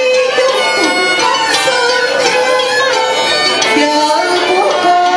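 Live Vietnamese cải lương music: long held notes with gliding, wavering pitch over a traditional instrumental accompaniment, without a break.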